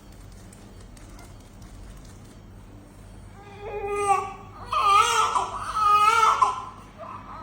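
Newborn baby crying: three short wailing cries, starting about halfway through.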